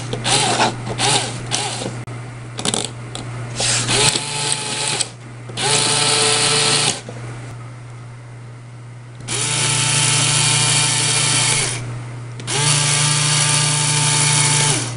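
A small LEGO electric motor whirring as it drives the rammer chain through a worm gear and plastic gears. It starts and stops in a string of short bursts during the first four seconds, then makes three steadier runs of one to three seconds each, with quieter pauses between.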